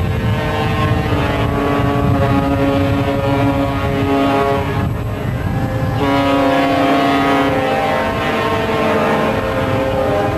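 Ships' horns sounding in long, overlapping blasts at several different pitches over a steady low rumble, as salutes for a warship leaving port; the blasts dip briefly about five seconds in.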